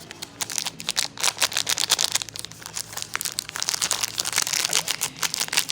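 Plastic wrapper of an individually packed biscuit crinkling as it is handled, a dense run of sharp crackles.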